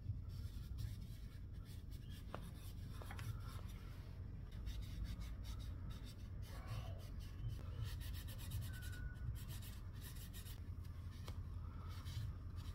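Faint, irregular scratching and rubbing as the steel crossguard of an old bayonet is scrubbed by hand to lift old oil or cosmoline and rust.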